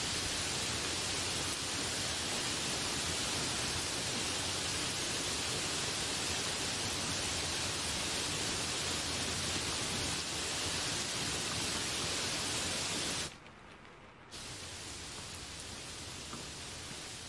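Heavy rain pouring onto trees and broad banana leaves, a steady dense hiss. About 13 seconds in it cuts out suddenly for about a second, then comes back a little quieter.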